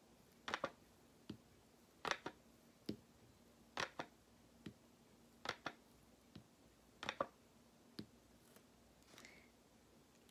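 A paintbrush handle tapping lightly on hard surfaces while dotting paint: a dozen or so short, sharp clicks, some in quick pairs, spaced less than a second apart.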